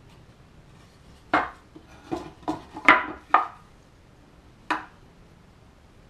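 Six sharp knocks of a metal SKS bolt against a wooden 2x4: five in quick succession, the loudest in the middle, and one more about a second later, as the firing-pin retaining pin is worked back into the bolt.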